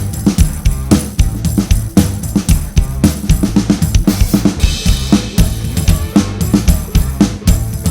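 Drum kit played in a steady groove along with a backing song that has a bass line. The snare is dampened by a Big Fat Snare Drum pad for a fat, short crack, and a cymbal crash rings out about four seconds in.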